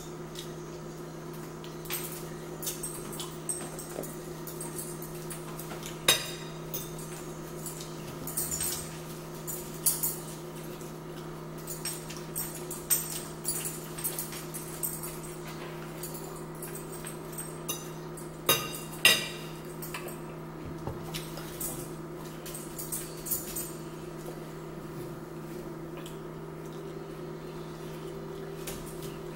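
Close-up eating sounds: chewing, lip smacking and mouth noises from eating shrimp and french fries, with scattered short clicks of plates or utensils, over a steady low electrical hum.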